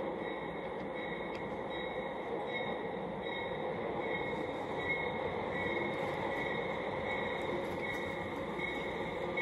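A train running along its track: a steady rushing rumble with a faint high tone pulsing about every 0.7 s, growing a little louder partway through as it comes closer.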